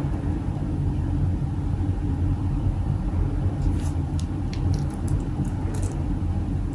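Steady low rumble of background noise. From about three and a half seconds in come light, scattered clicks of glass beads and metal chain being handled.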